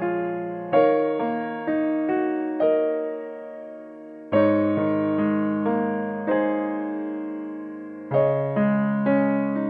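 Background music: a slow, soft piano piece, with notes and chords struck in short phrases, each ringing and fading before the next phrase begins.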